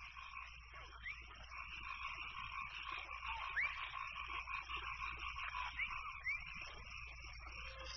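A chorus of frogs calling, a dense steady trilling in several layers with short rising chirps every second or two.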